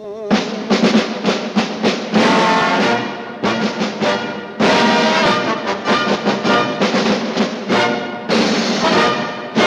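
Orchestral music with brass and timpani: a quick run of sharp percussion hits in the first two seconds, then long, loud held brass chords.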